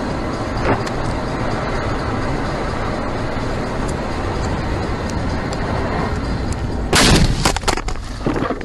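Steady road and wind noise of a car driving at speed, heard from a dashcam inside it, then about seven seconds in a loud car crash: a heavy impact followed by a rapid run of bangs and rattles that dies away.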